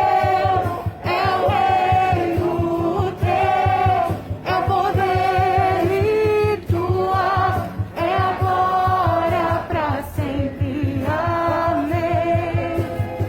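A group of voices singing a Christian worship song in phrases of held notes, with short breaks between phrases, over a fast low pulse.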